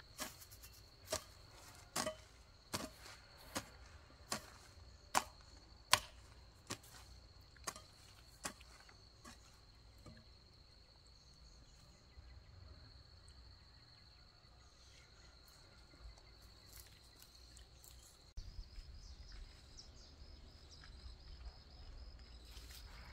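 A hand hoe chopping into garden soil, about one strike a second, stopping about nine seconds in. A steady high insect buzz runs underneath.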